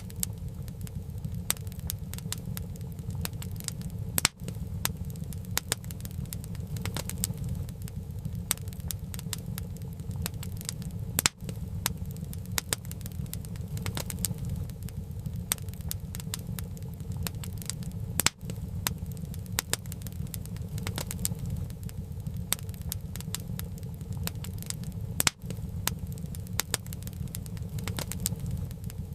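Wood fire burning, with dense, irregular crackles and sharp pops from the burning firewood over a steady low rumble.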